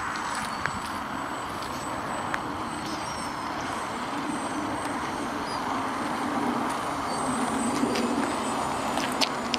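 Electric motor and propeller of a Slow Stick RC plane droning steadily overhead, getting a little louder in the second half as it comes closer. A few light clicks.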